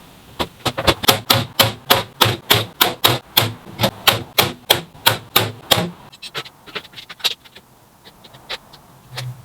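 Hammer striking metal in a steady run of sharp blows, about three to four a second, for five or six seconds, then a few lighter, irregular taps.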